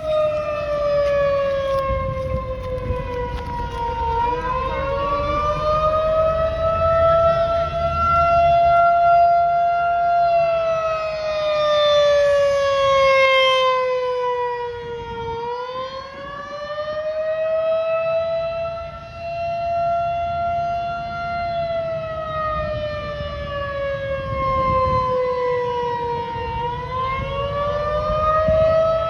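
Federal Signal 2001 rotating electromechanical warning siren sounding the attack signal: a single tone that slowly falls and rises again, about every eleven seconds. Its loudness swells and fades as the rotating horn sweeps past.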